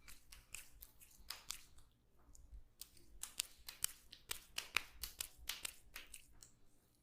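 Hands slapping and tapping on skin during a massage: a quick, irregular run of sharp pats, coming thickest in the middle of the stretch.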